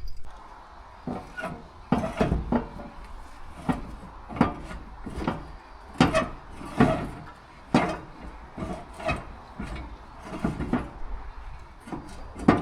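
Irregular knocks and clunks, about one or two a second, as the narrowboat's steel tiller stock is yanked and worked up out of its rudder tube.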